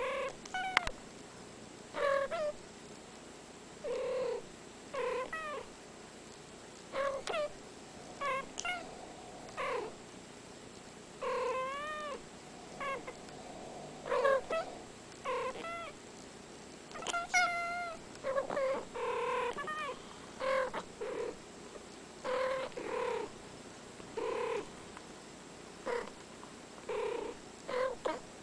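Two domestic cats trading short meows and chirping trills back and forth, one call after another with brief pauses between. Many of the calls rise and fall in pitch.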